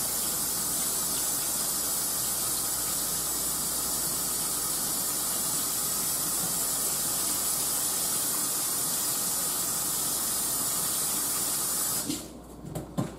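Kitchen sink tap running steadily while hands are washed under it, shut off near the end.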